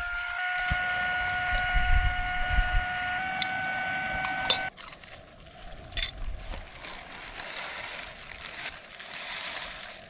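Small battery air pump (Flexitail Tiny Pump) whining steadily as it inflates a sleeping mat, its pitch stepping up slightly as the mat fills. It cuts off abruptly about halfway through, and a quieter hiss follows from the camping gas stove under a boiling pot, with plastic-bag rustles and a few clicks.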